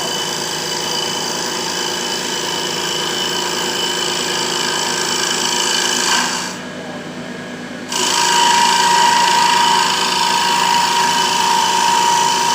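Mini CNC wood lathe running with a steady motor whine. About halfway through the sound drops suddenly for a second and a half, then comes back louder with a higher, steady whine.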